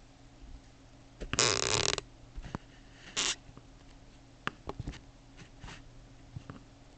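A short, loud rush of noise about a second in, a briefer one a second later, then scattered light clicks of a computer keyboard and mouse.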